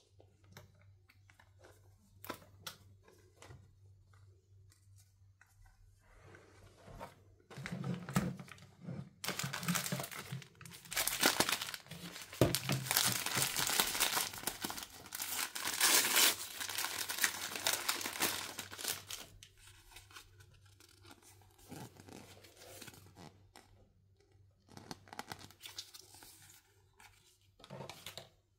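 A crinkly plastic blind-bag pouch handled and torn open by hand: light tapping and rustling at first, then about ten seconds of loud crinkling and tearing, then quieter rustles.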